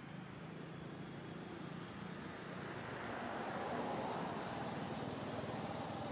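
Steady outdoor background noise, a low even rush that swells a little about three seconds in.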